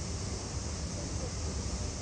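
Steady background noise: a low wind rumble on the microphone under an even hiss, with no distinct event.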